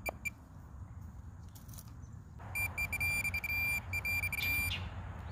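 Handheld metal-detecting pinpointer giving a couple of short high beeps, then, about two and a half seconds in, about two seconds of rapid chopped beeping as its tip closes on a metal target in the dug soil. A scraping rustle of dirt runs under the beeping.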